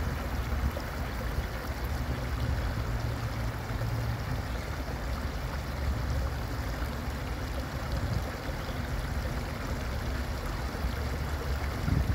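Small cascade of water spilling over a stone ledge into a shallow stream, a steady splashing rush with a low rumble underneath.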